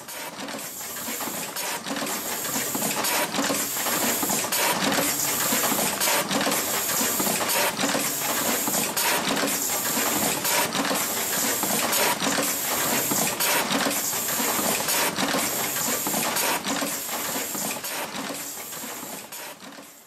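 Automatic wire crimping machine running in production, a clatter of clicks and air hiss repeating about once a second as it cycles.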